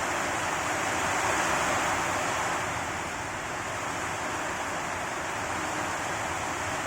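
Heavy rain falling, a steady dense hiss that swells around the first two seconds and eases slightly after.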